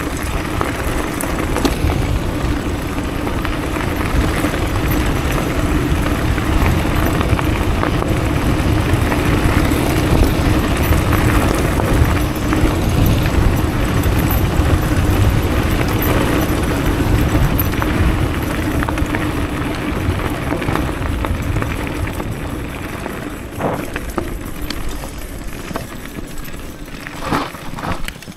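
Wind rushing over the microphone and tyres crunching on gravel as an electric downhill mountain bike rides fast along a gravel track, with a steady low hum underneath. The noise eases off over the last several seconds as the bike slows, with a couple of knocks near the end.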